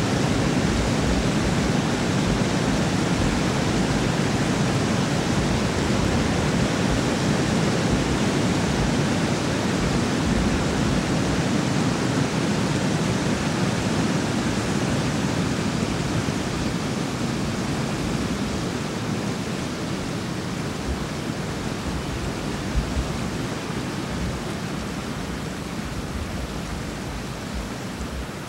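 Water pouring through a dam's open gates and churning into whitewater below: a steady, loud rushing that fades gradually over the second half.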